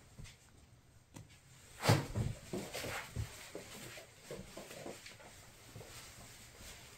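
Maine Coon kittens scuffling and wrestling on bedding: rustling with scattered soft thumps, the loudest about two seconds in.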